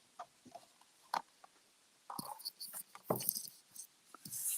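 Paper and cardstock pieces being handled on a craft desk: scattered light taps and clicks, with a few short papery rustles in the second half.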